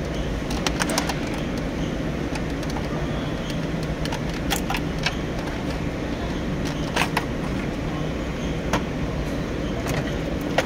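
Hand tools and metal parts clicking and clinking at scattered moments over a steady low background rumble.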